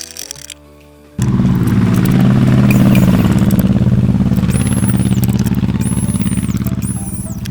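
A power tool's motor starts abruptly about a second in and runs steadily with a fast buzzing pulse, easing slightly toward the end.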